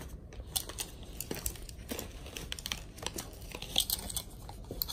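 Rustling and crackling of a dress, with its plastic hanger and tag, being handled and spread out, in a run of irregular short crackles.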